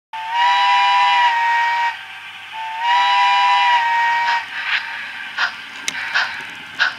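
On30 model steam locomotive's sound: a chime steam whistle blown twice in two long blasts. Then slow, even exhaust chuffs begin, about three every two seconds, as the locomotive gets under way.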